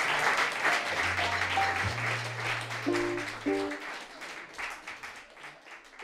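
Audience applause fading out at the end of a song, with a few stray notes from the band's instruments over it: low held bass tones, then two short chords about halfway through.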